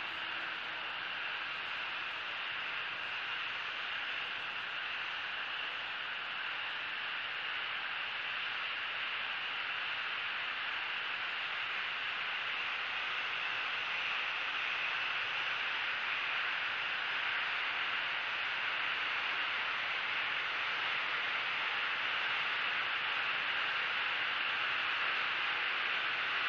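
Steady hiss of outdoor background noise, even throughout, with no distinct calls or knocks.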